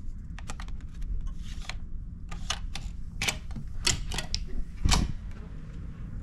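Clicks and clunks of a ferry cabin door's key-card lock and metal lever handle being worked, a dozen or so sharp clicks, with the loudest clunk about five seconds in as the door is pushed open.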